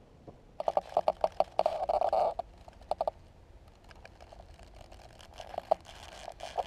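Quick runs of light knocks and clicks, with a short scraping rustle about two seconds in and a few more scattered clicks near the end.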